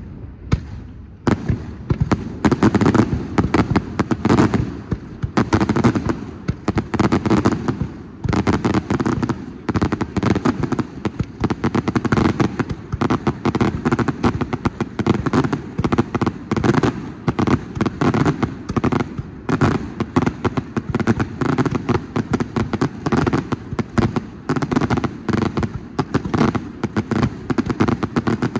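Fireworks display going off in a dense, continuous barrage of bangs, several a second, with no let-up after the first second.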